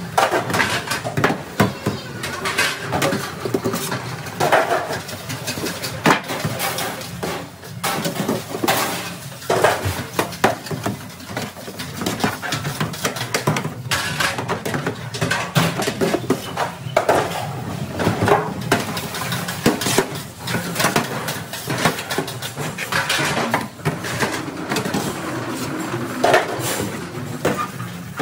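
Stainless steel hotel pans clanking and scraping against one another and the metal sink as they are scrubbed and stacked, a busy run of irregular metal knocks in quick succession.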